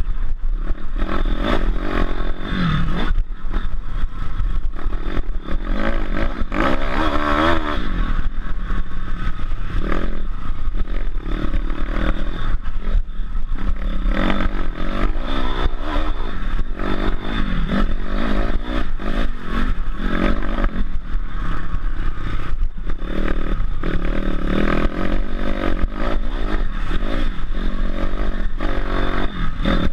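Motocross bike engine revving up and down over and over as it rides the track, pitch rising and falling with the throttle, along with clattering.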